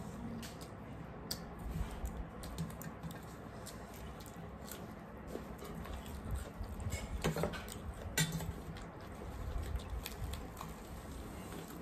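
Close-up eating sounds: puffed, deep-fried bhature bread crackling as it is torn by hand, with chewing and scattered small clicks, and a couple of louder snaps about seven and eight seconds in.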